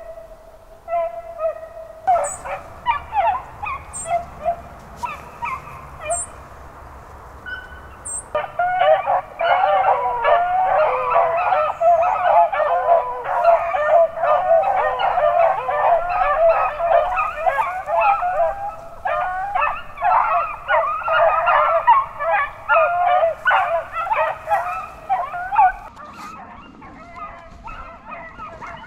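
Pack of beagles baying on a cottontail rabbit's trail. A few scattered bawls come first, then from about eight seconds in the pack gives voice together in a dense, overlapping chorus that thins out near the end.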